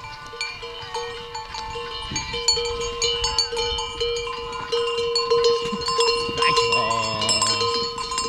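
Neck bells on a string of pack yaks jangling as the animals walk past, many strikes ringing over one another.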